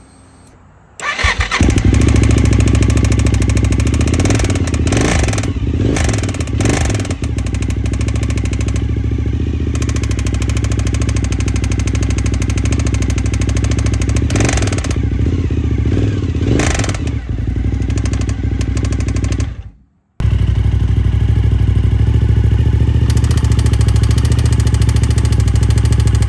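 Suzuki TL1000S's 90-degree V-twin engine starting about a second in and then running at idle with a few short blips of the throttle, carrying a ticking noise whose cause the owner is trying to find. The sound breaks off for a moment near the end and the engine is running again straight after.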